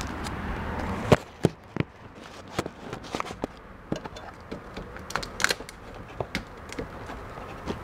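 Hands working on motorcycle wiring as the CDI connector is plugged back in: scattered clicks and knocks of plastic and metal parts, with a sharp knock about a second in, where a steady low hum stops.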